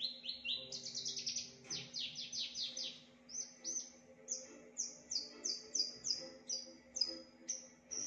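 Javan bushlark (branjangan) singing: a fast trill of high down-slurred notes, then a slower string of repeated descending whistles at about two or three a second.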